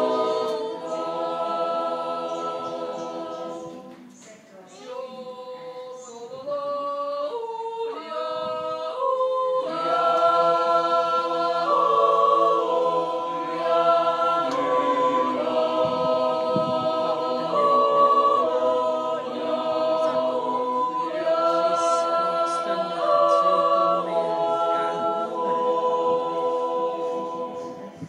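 Swiss men's yodel choir singing a cappella, holding sustained chords that change every second or two. About four seconds in the full choir drops away and a few voices carry a stepping melody, then the whole choir comes back in about ten seconds in; the last chord dies away at the end.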